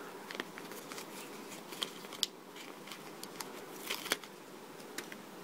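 Faint crackling and scattered light clicks of a paper sticker sheet being flexed and handled while a sticker is peeled off its backing, with a few sharper clicks about two and four seconds in.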